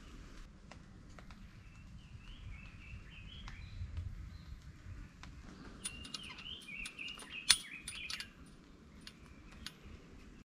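Small songbirds chirping and twittering in two spells, with scattered clicks and one sharp click about seven and a half seconds in as a hand works the lantern hook on the metal tent pole.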